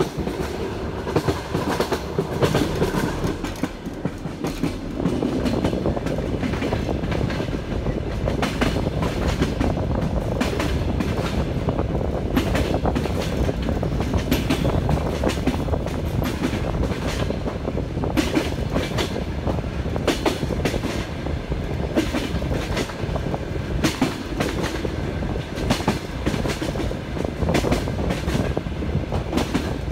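Passenger train running at speed, its wheels clattering over the rail joints: a steady rumble broken by a run of sharp clicks.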